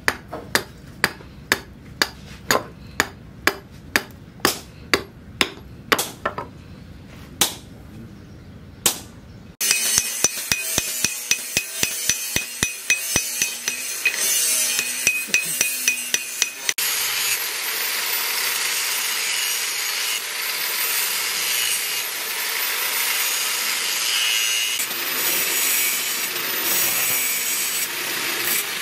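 Sharp hammer blows, about two a second, then faster, lighter strikes with a ringing note. From about seventeen seconds in, a handheld angle grinder runs steadily, grinding steel.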